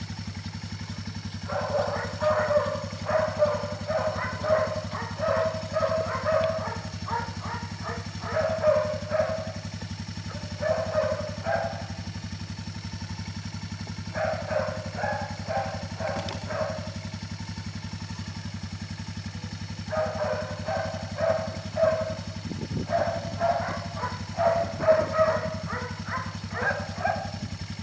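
Four-wheeler (ATV) engine idling steadily. Over it come several clusters of short, high-pitched vocal sounds, each a few seconds long, louder than the engine.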